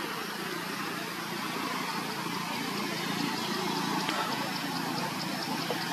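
Steady outdoor background noise, with a faint, fast high-pitched pulsing that sets in about two seconds in.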